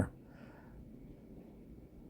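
Faint, steady low background noise of the outdoors, with no distinct event.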